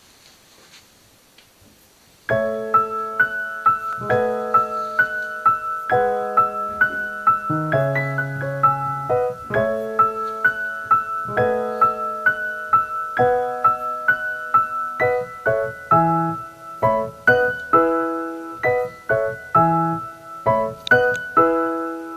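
Background music: a light keyboard tune in evenly spaced notes with a repeating high note, starting about two seconds in after faint room tone.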